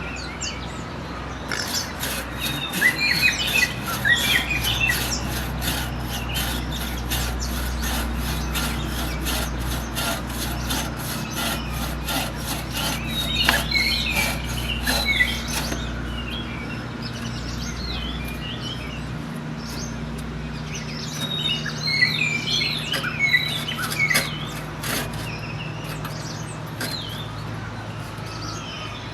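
Rhythmic scraping strokes, about three a second, that stop about halfway through, with birds chirping on and off throughout.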